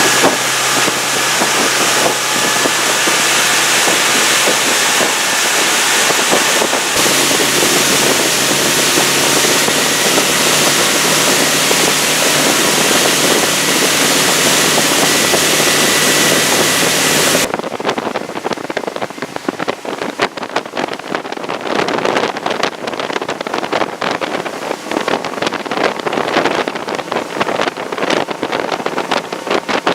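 A motorboat running under way, its engine drone mixed with heavy wind rushing over the microphone. A little over halfway through the sound changes abruptly, the steady hiss giving way to uneven, gusty buffeting.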